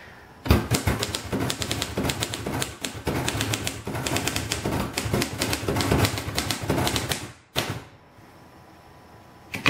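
Royal Companion manual typewriter from the early 1940s being typed on in a quick run of keystrokes, each type bar striking with a sharp clack. The typing stops about seven seconds in, followed by one single clack.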